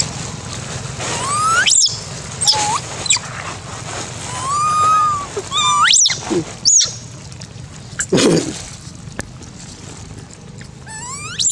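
Young long-tailed macaques squealing: several sharp calls that rise steeply in pitch, and one longer steady call about halfway through.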